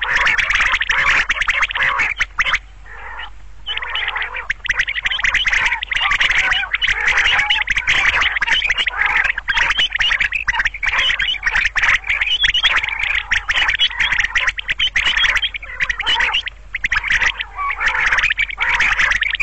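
Common quail calling in a dense, rapid, continuous chatter of calls, with brief lulls about three seconds in and about sixteen seconds in.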